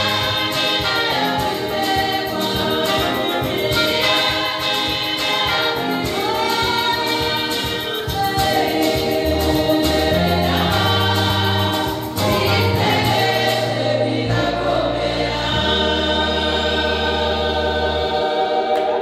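Women's gospel choir singing together through microphones over bass and a drum beat. About three-quarters of the way through the drums drop out, leaving the voices over long held bass notes.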